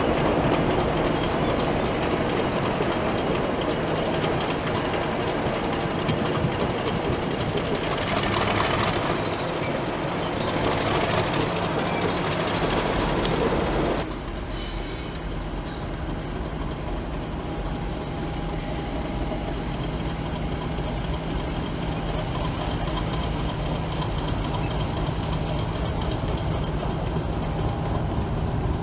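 Diesel locomotives running on the rails: a continuous engine drone with wheel and track noise. About halfway through the sound drops suddenly to a quieter, steadier engine hum.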